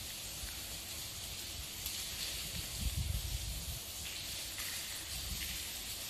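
Steady hiss on a handheld camera's microphone moving through a concrete tunnel, with a few soft, low thuds about halfway through.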